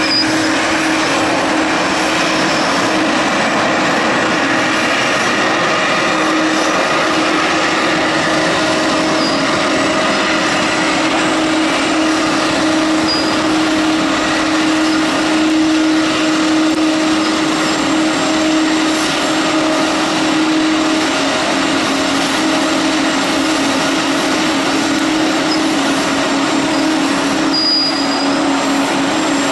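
Jet airliner engines running at idle as jets taxi, a steady rushing whine with a low hum that drops slightly in pitch about two-thirds of the way through.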